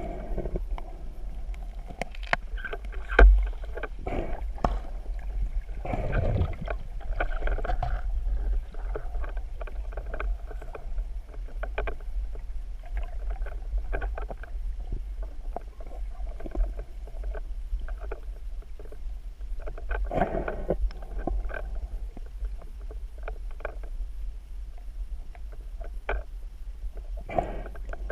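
Muffled water noise picked up by a camera in an underwater housing: a steady low rumble with scattered clicks and knocks, one sharp knock about three seconds in, and a few brief rushing swells of water movement.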